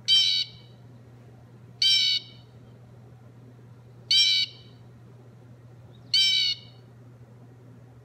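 Recorded blue jay calls played through the small speaker of a sound book's button panel, the Little Book of Backyard Bird Songs: four short calls about two seconds apart.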